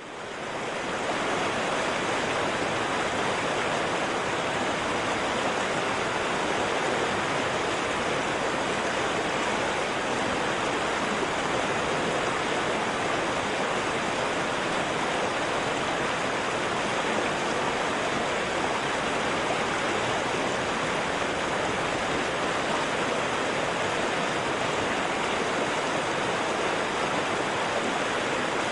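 Mountain stream rushing steadily over a rocky bed, a constant even wash of flowing water that fades in over the first second.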